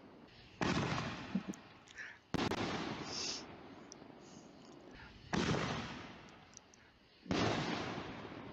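Aerial artillery shell fireworks going off: four sudden loud booms, each fading away over a second or two, with small faint pops between them.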